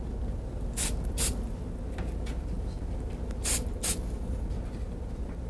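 Aerosol can of fluorescent penetrant sprayed in four short hissing bursts, in two pairs, over a steady low hum.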